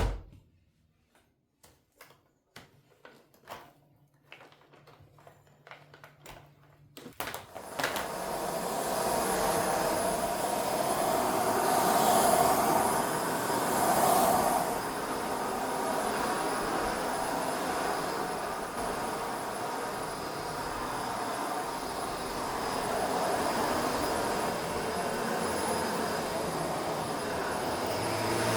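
A few faint clicks and knocks of handling, then about seven seconds in an electric household appliance motor switches on and runs steadily with a loud rushing noise and a faint hum.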